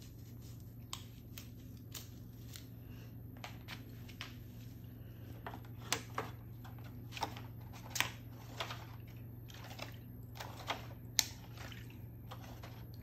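Irregular light clicks and rustles as pussy willow branches are handled in an aluminium foil tray of liquid dye, over a steady low hum.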